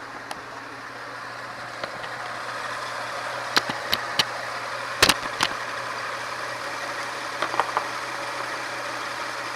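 2002 Toyota 4Runner's engine idling steadily with its new transmission in, while a few sharp clicks and knocks come in a cluster between about three and six seconds in and again near the end.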